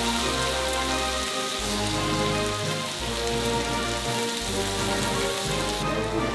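Food sizzling and spitting on a hot cooking surface: a steady crackling hiss, under background music.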